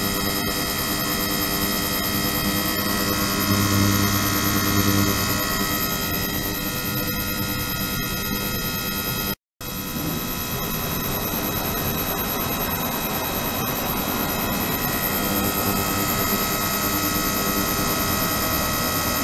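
Ultrasonic tank in a plastic water container running: a steady hiss with several fixed high-pitched tones layered over it, and a low hum swelling for a second or so a few seconds in. The sound cuts out for an instant about nine seconds in, then carries on the same.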